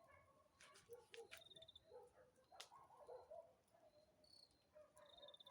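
Faint campfire crackling, with scattered sharp pops from the burning wood. A few short high chirps are heard about a second and a half in and again near the end.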